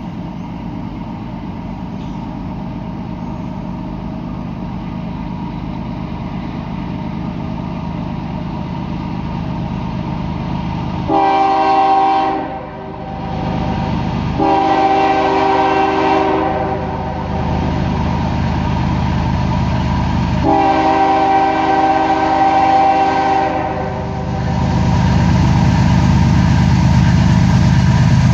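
CSX freight train's diesel locomotives approaching, a low rumble growing steadily louder, then the lead locomotive's multi-note air horn sounding three long blasts about 11, 14 and 20 seconds in, with the engine and rail rumble loudest near the end.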